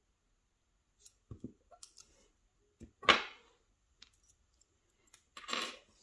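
Small metal clicks and taps as a tiny brass padlock is handled and worked with tweezers, with parts coming out onto a rubber pin tray. Three short louder rustling bursts cut in, the loudest about three seconds in.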